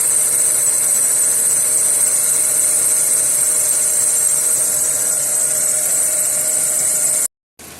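Škoda Fabia 1.4 MPI four-cylinder petrol engine idling steadily after a cold start, with no knock from under the valve cover; the auxiliary drive belt whistles slightly, put down to damp after rain. The sound cuts off abruptly near the end.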